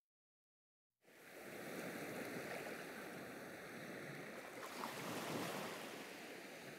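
About a second of dead silence, then gentle surf on a beach fades in: a soft, steady wash of waves.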